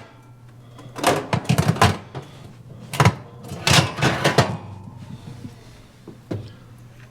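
A run of sharp knocks and clatters, several close together in the first half and one more near the end, over a steady low hum.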